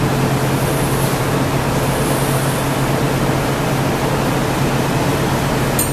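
Gas-fired glory hole and studio fans running with a steady rushing noise over a low hum. A short click near the end.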